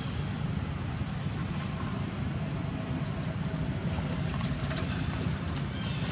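Insects chirping in a high, pulsing chorus over a low steady rumble, the chorus strongest in the first couple of seconds; a few short sharp clicks come in the second half.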